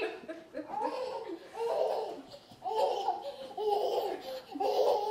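A toddler laughing in a string of short, repeated bursts, each a second or less apart.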